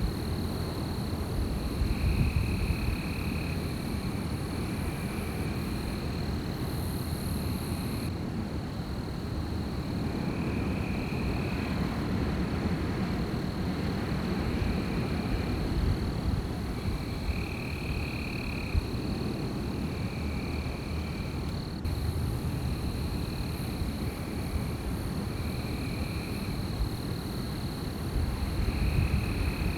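Wind blowing in a steady low rumble that swells louder about two seconds in and again near the end. Over it run a continuous high-pitched drone and short repeated calls every second or two from night creatures, such as frogs or insects, by the lake.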